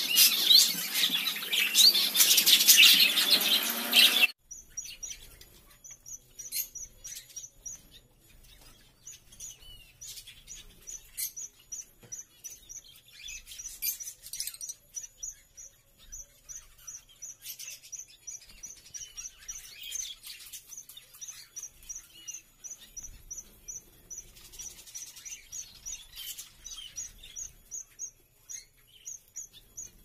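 Aviary birds chirping: a loud, dense chatter of calls that cuts off about four seconds in, then a quieter stretch of scattered calls over a high, regular chirp repeating two or three times a second.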